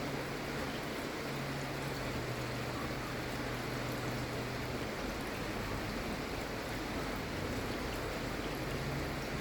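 Steady gentle rain, an even hiss with faint scattered drop ticks.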